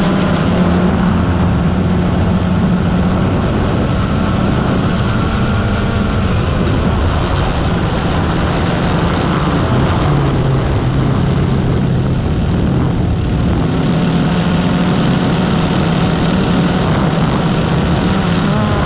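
Drone's electric motors and propellers running steadily in flight, heard from its onboard camera, their pitch shifting a little now and then as it manoeuvres.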